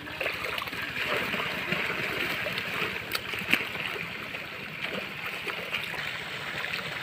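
Water gurgling and splashing steadily, with a sharp knock about three and a half seconds in.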